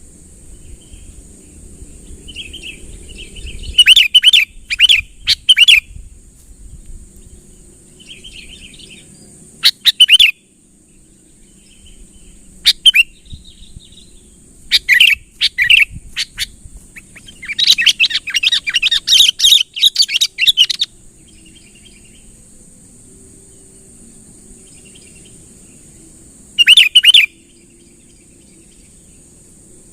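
Sooty-headed bulbul (kutilang) calling in loud bursts of bright chirping phrases, with a longer run of rapid chirps about two-thirds of the way through. A steady high hiss sits underneath.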